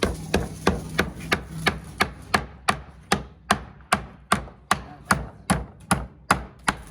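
Hammer blows struck in a steady rhythm, about three a second and easing slightly toward the end, each a sharp knock with a brief ring.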